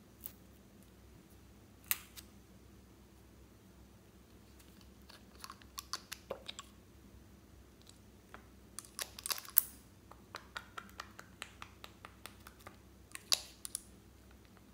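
Scattered light clicks and clinks of small containers being handled: a plastic cap pulled off a tube near the start, and a glass dropper knocking against its small glass bottle, with a quick cluster of clinks past the middle.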